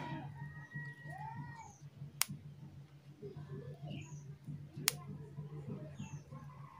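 Quiet background with a low steady hum. About a second and a half in comes a short rising-and-falling animal cry. Two sharp clicks follow, about two and five seconds in.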